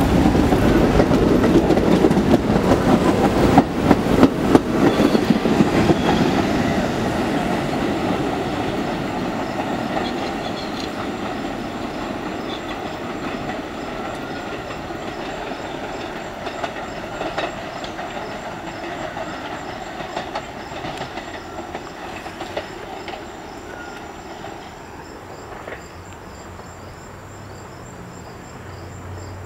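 Staten Island Railway R44 subway train pulling away from the station, its wheels clicking over rail joints in the first few seconds, then the running rumble fading steadily as it draws off into the distance.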